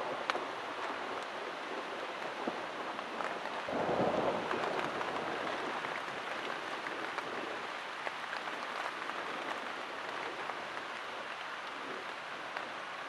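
Steady rain falling, heard from inside a tent, with a brief low rumble of thunder about four seconds in and a few sharp ticks of single drops.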